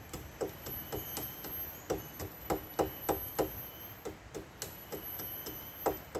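Repeated chopping strikes of a blade against wood, about three a second with a short pause about four seconds in, as a mark is hacked into a tree along the trail.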